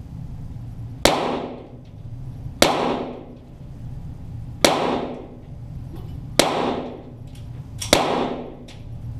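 Five .22 rimfire shots from Walther GSP target pistols, fired one at a time about one and a half to two seconds apart, each shot echoing off the range walls.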